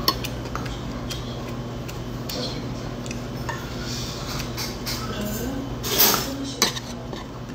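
Chopsticks and spoon clicking and clinking against a stainless-steel rice bowl and plates, with a loud eating noise about six seconds in as a bite is taken from the chopsticks, followed by a sharp click.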